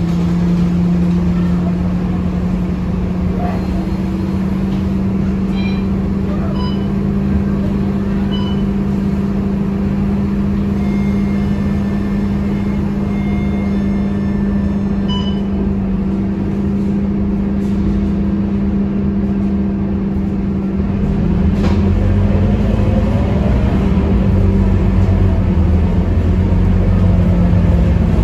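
Scania K230UB city bus's rear-mounted five-cylinder diesel engine droning steadily, heard from inside the passenger cabin while the bus drives along. It grows louder and deeper about three quarters of the way through, with more rumble underneath.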